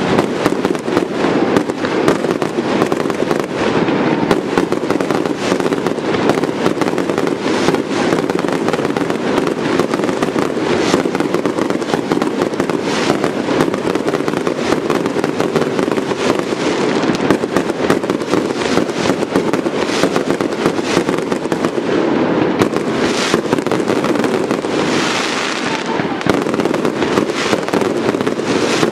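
Aerial fireworks display: a continuous, dense barrage of shell bursts and crackling stars, with a short hiss about 25 seconds in.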